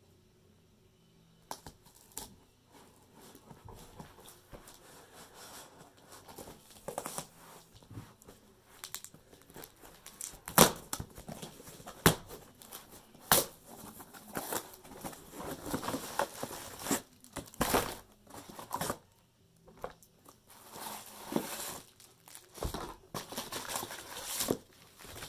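A mailed box being opened by hand: irregular tearing and rustling of the packaging, broken by several sharp snaps or knocks, the loudest about halfway through.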